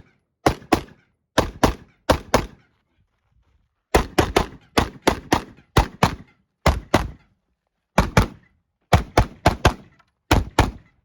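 AR-15 rifle fired in rapid semi-automatic strings, mostly quick pairs and triplets of shots, about two dozen in all, with a pause of about a second and a half before the pace picks up again.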